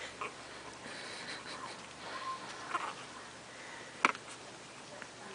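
Puppies scuffling in play: light pattering and snuffling noises, with one sharp click about four seconds in.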